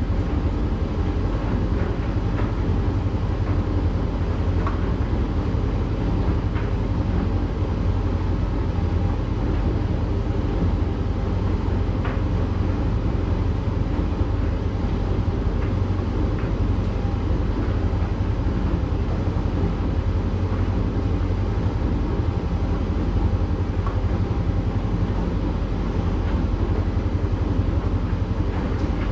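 Candy GrandO tumble dryer running steadily at the start of a drying cycle on a small load of towels, its drum turning and its fan giving a continuous low hum.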